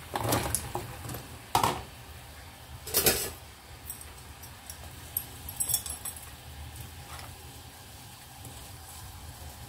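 Sliced lotus root tipped from a glass bowl into a pan of boiling water for blanching, with three splashy knocks in the first few seconds, then a few light clinks of metal tongs against the pan as the slices are spread out, over a low steady hum.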